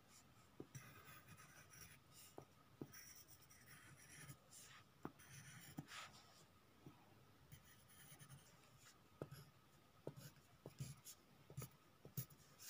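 Faint scratching of a ballpoint pen drawing strokes on paper, with small ticks as the pen meets the page.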